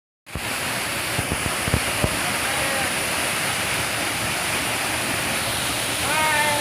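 Steady rush of flowing river water. A few short knocks come about one to two seconds in, and a brief voice sounds near the end.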